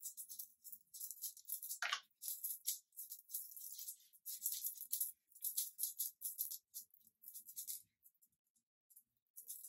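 Makeup brush swept in quick repeated strokes over a wig cap and skin, giving soft, close-up bristle swishes about two or three times a second. One brief lower swish comes about two seconds in, and the brushing stops shortly before the end.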